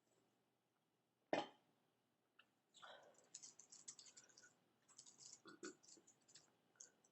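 A single sharp click about a second in, then a run of faint, irregular clicks and taps for about four seconds.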